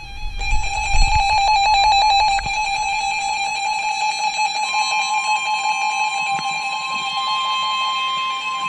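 Weather radio alert alarm: a loud, steady electronic warbling alert tone. About halfway through it is joined by the steady NOAA Weather Radio warning alarm tone, which marks an incoming warning broadcast.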